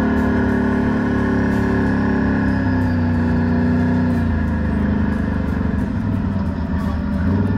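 ATV engine running as it rides a dirt trail. Its pitch drops about four seconds in as the machine slows.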